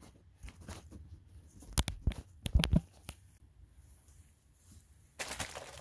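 Light clicks and knocks of metal brake parts and tools being handled, a cluster of sharp ones about two to three seconds in. A rustling noise starts near the end.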